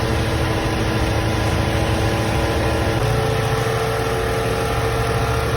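Mercedes-Benz W460 230 GE's 2.3-litre four-cylinder petrol engine idling steadily; about three seconds in, its tone shifts slightly.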